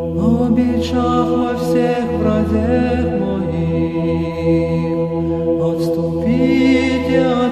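Orthodox chant used as background music: voices sing a slow, bending melodic line over a steady held drone.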